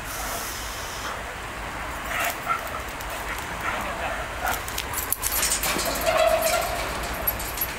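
A German Shepherd police dog giving a few short, high whines, with clanking footsteps on a steel-grating bridge deck in the middle of the stretch, over a low steady rumble.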